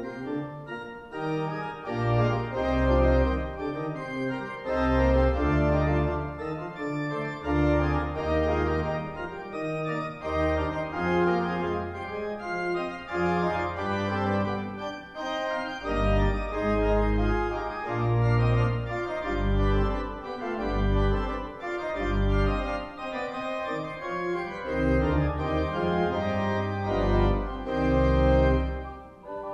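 Sampled pipe organ from Hauptwerk's Cappel set, the Arp Schnitger organ at Cappel, playing a fast Baroque allegro in several lines at once over deep pedal notes that come in about two seconds in.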